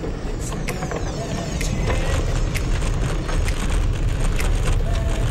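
Bicycle riding at speed: a steady low rumble of wind and tyre noise, with frequent sharp clicks and rattles as it rolls onto a wooden plank bridge deck.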